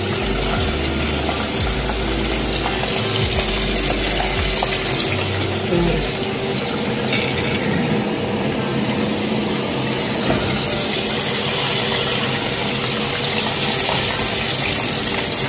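Breaded chicken pieces deep-frying in a pot of hot oil, a steady sizzle.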